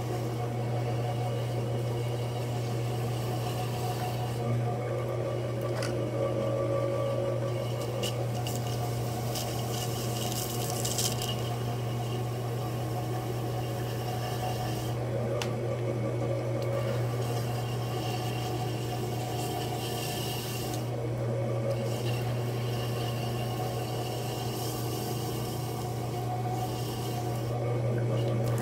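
Electric potter's wheel running with a steady motor hum, while wet hands and a sponge rub on the spinning clay as it is centred and coned up.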